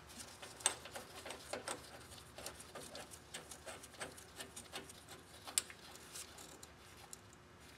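Faint, irregular small clicks and taps of gloved hands handling a metal inline fuel filter and its line fittings, with a slightly louder tick about half a second in and another near the end.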